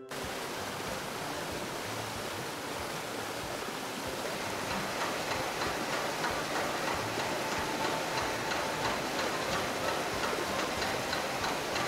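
Rushing water pouring down a penstock onto a water turbine, a steady rush that starts suddenly and grows a little louder.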